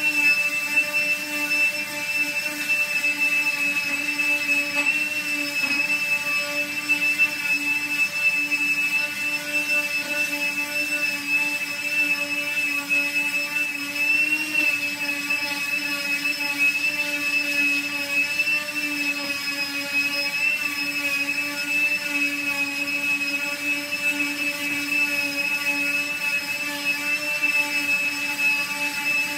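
Bauer 20-volt cordless random orbital sander running steadily on plywood with a 100-grit pad, a high motor whine whose pitch wavers only slightly.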